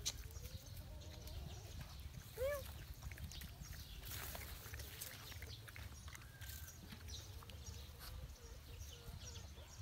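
Dogs eating and drinking from bowls: faint scattered clicks and rustles over a steady low rumble, with one short animal call about two and a half seconds in.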